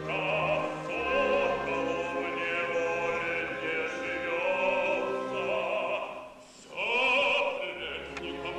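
Operatic male singing with orchestra accompaniment: a voice with strong vibrato sings sustained phrases over the orchestra, breaks off briefly about six and a half seconds in, then starts a new loud phrase.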